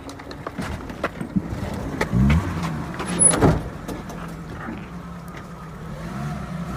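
Car engine catching on a push start about two seconds in, its pitch rising and then settling into a steady running hum, the sign that the newly fitted timing belt works. There is a sharp thump about a second later.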